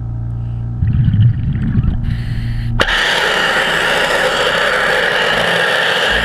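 Underwater pressure-washer jet firing from a wand nozzle at an intake screen: a loud, steady hiss that starts abruptly about three seconds in. Before it, a low steady hum.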